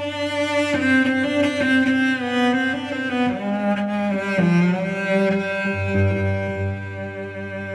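Slow instrumental music with bowed strings holding long notes that change pitch every second or so, over a steady low bass line.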